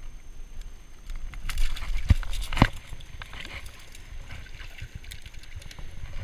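Sea water sloshing and gurgling among shore rocks, with handling noise and two sharp clicks a little after two seconds in as pliers work a hook out of a small fish.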